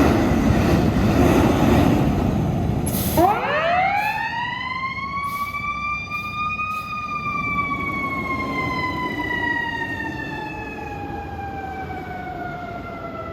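Loud low rumble, then about three seconds in a fire engine's siren winds up quickly, peaks, and slowly winds down, sinking in pitch as it coasts.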